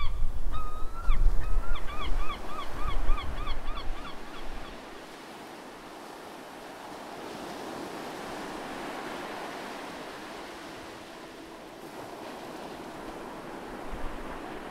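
Surf breaking against a rocky shore, a steady wash of noise. For the first few seconds wind buffets the microphone with a low rumble, and a bird calls a rapid run of repeated notes, about four a second.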